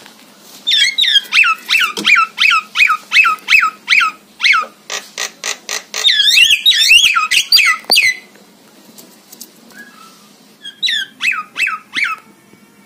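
Javan myna calling: a run of loud, repeated downward-sliding notes, about three a second. Then a quick rattle of clicks and a tangle of harsher notes, a pause, and a short second run of sliding notes near the end.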